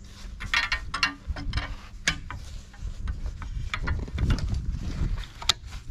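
Irregular clicks and knocks of a bike trailer's frame tubes and clamps being handled, as a clamp is loosened.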